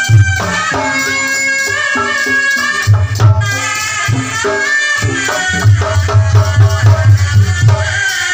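Kendang pencak ensemble playing: a tarompet (Sundanese shawm) holds a wavering, ornamented melody over kendang barrel-drum strokes. The drums break into a fast, even beat of about four strokes a second from about halfway through.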